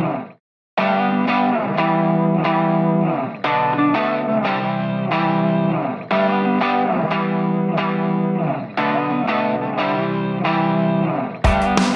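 Background music: a guitar with effects plays plucked notes in an even, repeating pattern. It drops out briefly about half a second in, and a fuller sound with drums comes in near the end.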